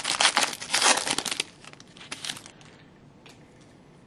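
Crinkling of a hockey card pack's wrapper as it is handled. It is loudest for about the first second and a half, thins to a few faint crackles, and stops a little past halfway.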